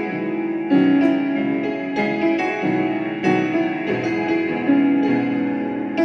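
Solo keyboard music with a piano sound: sustained chords under a melody, with new notes struck every half second to a second.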